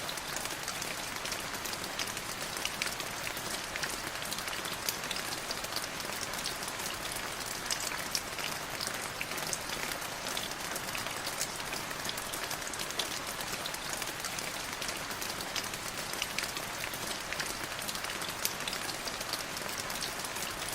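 Steady rain falling, with many separate drop hits heard as sharp ticks.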